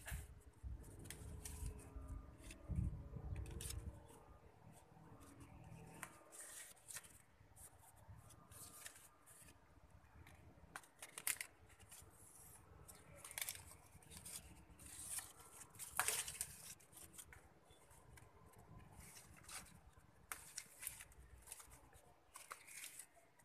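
Soursop leaves being plucked by hand from the branch: irregular rustling and sharp little snaps as the leaf stalks break off. A low rumble of handling runs through the first few seconds.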